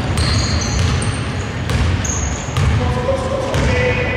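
A basketball being dribbled on an indoor court, with players' sneakers squeaking briefly and high on the floor, over the steady low rumble of a large hall.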